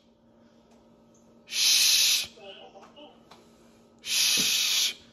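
A person hissing through clenched, bared teeth: two short hisses, each under a second long, about two and a half seconds apart.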